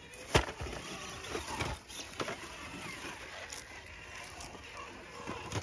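Radio-controlled rock crawler working over rocks: scattered knocks and clicks of its tyres and chassis on stone, the sharpest about half a second in.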